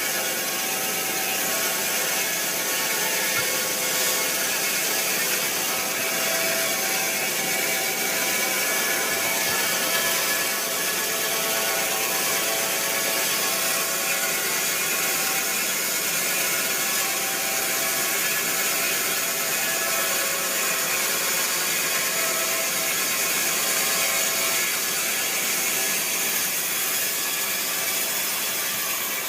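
Sawmill saw running steadily: a loud, constant mechanical noise with a few held whining tones, no let-up.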